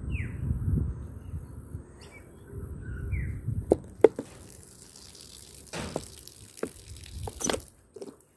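Liquid poured from a bottle spattering onto dry leaves and grass, with a few sharp taps. A bird chirps twice in the first few seconds.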